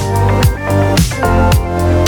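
Background music with a steady electronic beat: a kick drum about twice a second under held chords and crisp high percussion.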